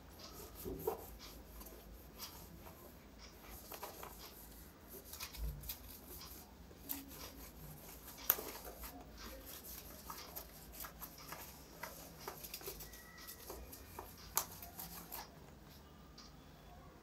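Cloth wiping marker off a whiteboard: faint, irregular rubbing and squeaking strokes that stop about fifteen seconds in.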